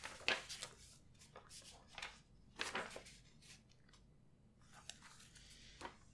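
Paper pages of a sketchbook being turned and handled: several short rustles and crinkles of paper, the loudest just after the start and near three seconds in.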